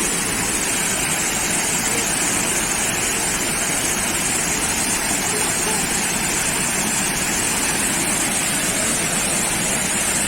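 Steady rushing of water, with voices murmuring underneath.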